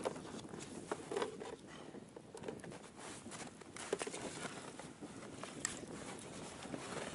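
Ice-fishing gear being handled at a hole in the ice: scattered light clicks and knocks as a tackle box is sat on and a skimmer and short ice rod are worked at the hole.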